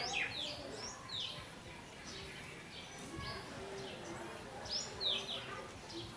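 Small birds chirping in short, falling calls, a handful of times, with a faint low cooing note in the middle.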